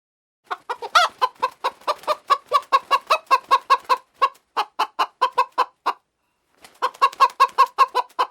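Hen clucking in a fast run of short clucks, about five a second, breaking off for a moment about six seconds in and then starting again.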